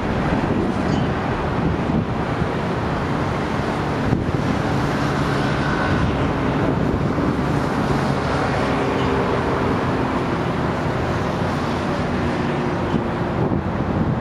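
Wind buffeting the microphone over steady road traffic, with an engine's hum coming through in the middle.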